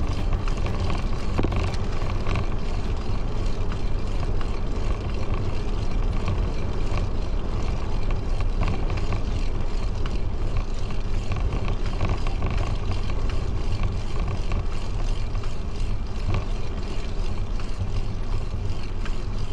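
Steady wind on the microphone and tyre noise from a bicycle riding along a paved path, heaviest in the low rumble.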